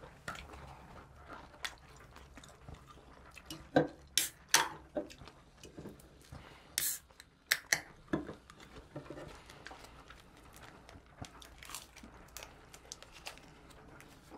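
People chewing and biting into thin-crust pizza close to the microphone: scattered mouth sounds, with a few sharp, louder bites about 4 and 7 seconds in.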